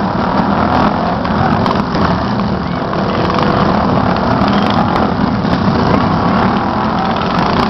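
Small lawn mower engines running steadily at race speed, several at once.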